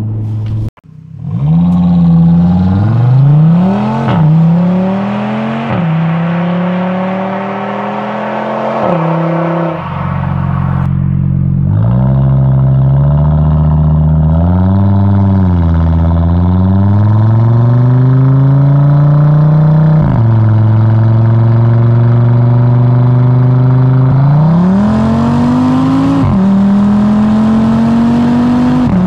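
Audi RS3 8Y's 2.5-litre inline five-cylinder engine through a Provocateur aftermarket exhaust, heard close to the tailpipe, accelerating hard with several quick upshifts, each a sudden drop in pitch before it climbs again, with some steadier stretches between pulls.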